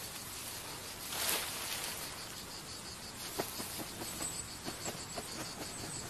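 Insects trilling in a fast, even pulse from about two seconds in. A brief rush of rustling comes about a second in, and a few soft snaps follow in the middle.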